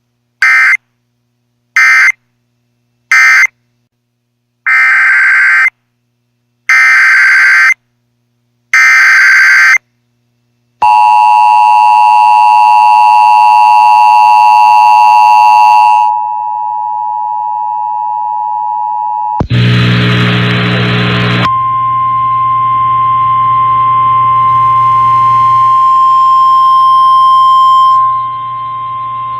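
Emergency alert tones between two weather-warning broadcasts. First come six screeching SAME data bursts, three short and then three of about a second each. A steady two-tone attention signal follows, loud for about five seconds and then quieter, then a short loud burst of noise, then a long steady single-pitched weather radio alarm tone.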